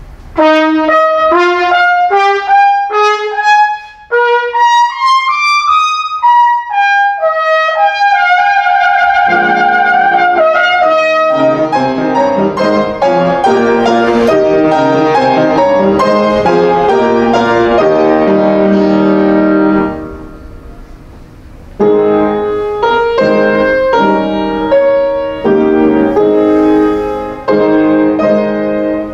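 Trumpet with piano accompaniment. The trumpet opens alone with fast rising runs, and the piano joins about nine seconds in. After a short pause around twenty seconds the piano plays on, and by the end the trumpet has stopped.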